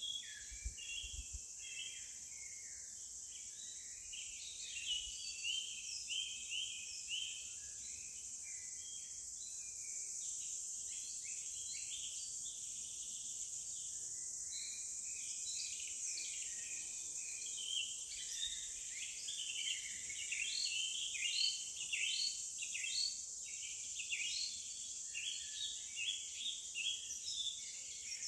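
Forest ambience: many birds chirping and calling over a steady high-pitched insect drone, the birdsong thinning for a while midway and then picking up again.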